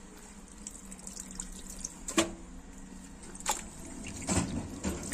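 Wet laundry soaking in water in a front-loading washing machine drum, moved by hand: water sloshing and dripping, with a few short splashes in the second half.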